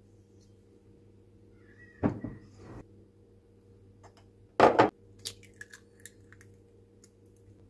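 An egg tapped sharply a few times against the rim of a ceramic mixing bowl, followed by small clicks and crackles as the shell is pulled apart. About two seconds in there is an earlier knock and clatter from handling in the bowl, all over a faint steady hum.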